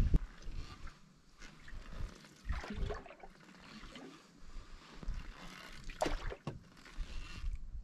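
Canoe paddle strokes splashing and dripping in lake water, a few uneven strokes with an uneven low rumble underneath.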